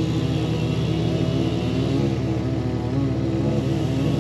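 Chainsaw engines running steadily, with no marked revving up or down.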